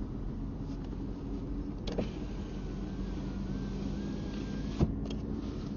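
A vehicle running with a steady low hum, with two sharp clicks, about two seconds and five seconds in, the second louder.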